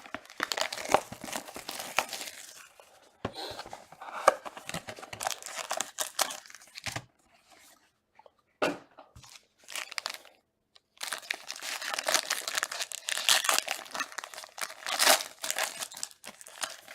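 Packaging being torn open and crumpled by hand: the wrapping of a trading-card box and pack ripping and crackling in several spells, with a longer, louder spell of tearing and crumpling in the second half.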